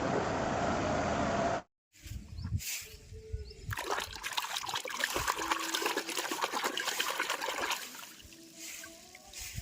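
Water trickling and splashing, densest from about four seconds in until near the end. Before it comes a steady noisy rumble that cuts off abruptly, followed by a few low knocks.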